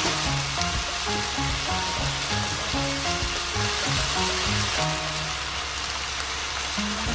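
Light background music of short plucked-style notes over the steady hiss of food sizzling in a frying pan.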